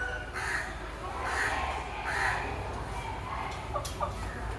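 Three harsh, raspy bird calls, one about every 0.8 seconds, in the first two and a half seconds, just after a rooster's long crow ends.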